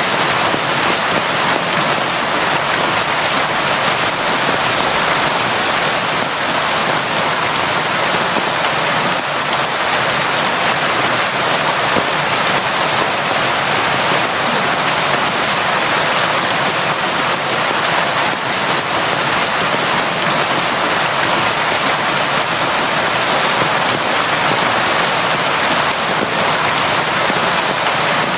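Steady, heavy rain falling without a break, an even hiss of countless drops.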